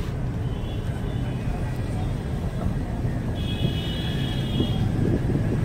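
Steady low rumble of street traffic, with a brief high-pitched tone about three and a half seconds in that lasts about a second.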